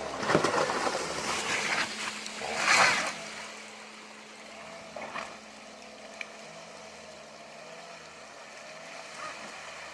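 A car driving through a river ford: water splashes loudly over the first three seconds, the loudest a little before three seconds in, then the engine runs steadily and quieter with water flowing.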